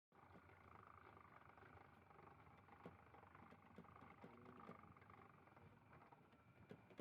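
Near silence: faint background noise with a few light clicks and knocks.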